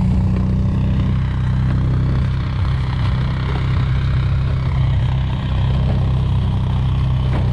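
ATV engine running steadily at low speed while towing loaded trailers over snow, heard from a trailer behind it.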